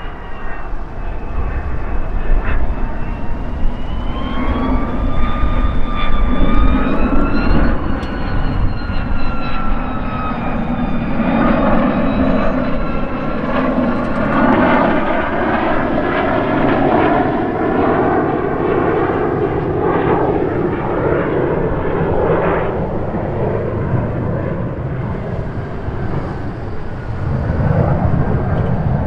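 Lockheed ER-2's single General Electric F118 turbofan on landing approach, gear down, flying low past: a jet whine that wavers in pitch over the first ten seconds gives way to a louder rushing rumble as the aircraft goes by, then eases off.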